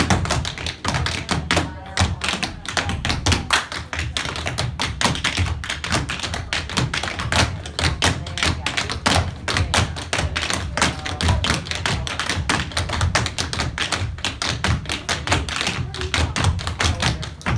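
A team of cloggers dancing a cappella, with no music: a rapid, steady run of shoe taps and stomps on a hard floor, the strikes landing together in rhythm.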